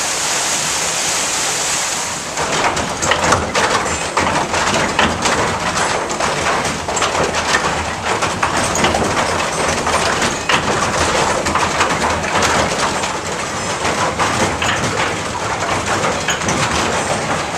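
Water-powered sawmill at work: rushing water, then from about two seconds in the saw cutting through a log with a dense, rapid clattering rattle that keeps on steadily.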